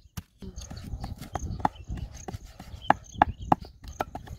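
Wooden pestle pounding a herb paste in a wooden mortar: a run of dull wooden knocks, about two to three a second.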